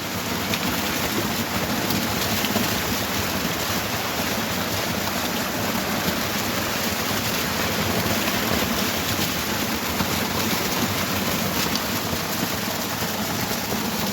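Steady rush of a waterfall and its running stream, an even unbroken noise.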